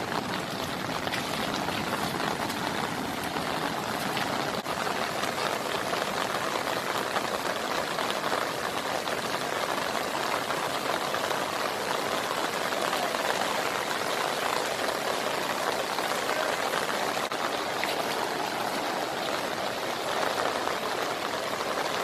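Muddy floodwater of a swollen river rushing across flooded land, with rain falling: a steady, even rushing hiss.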